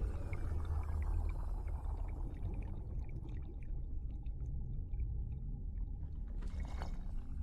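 Deep, steady earthquake rumble in film sound design, with faint bubbling and ticking above it and a brief rush near the end.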